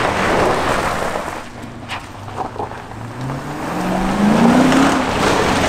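Dodge Charger police car's engine revving as it is driven hard on loose gravel, with a rush of tyre noise at the start. The engine drops away for a couple of seconds, then revs up again, rising in pitch, near the end.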